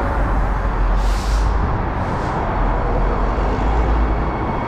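Steady roar of road traffic, with wind rumbling on the microphone and two short hisses about a second and two seconds in. The din is described as very noisy.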